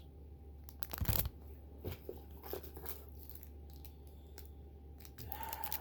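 Merchandise and packaging being handled and unwrapped: plastic rustling with small clicks, a sharp rustle or tear about a second in and a scrape near the end.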